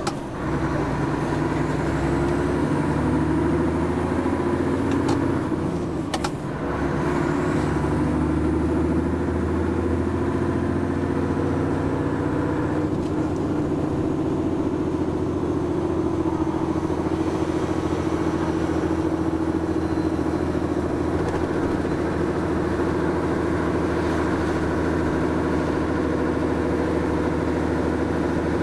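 Diesel engine of a Mercedes Actros truck running under way, heard from inside the cab, with a steady low note. The note shifts a little in pitch early on and dips briefly about six seconds in.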